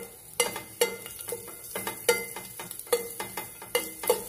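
Metal ladle knocking and scraping against a metal pot while stir-frying sliced onion and garlic in a little oil: ringing knocks about twice a second over a light sizzle.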